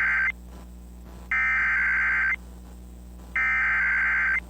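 Emergency Alert System SAME header: a buzzy two-tone digital data burst about a second long, sent three times with a second's gap between. The first burst ends just after the start. The header is the machine-readable code of the alert, here a severe thunderstorm warning, that triggers weather radios and broadcast encoders.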